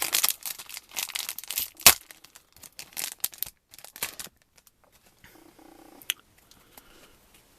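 Foil trading-card booster pack wrapper tearing and crinkling as the pack is opened and cards are handled, in quick dense rustles. After about five seconds the rustling stops and a faint low hum comes and goes in short stretches.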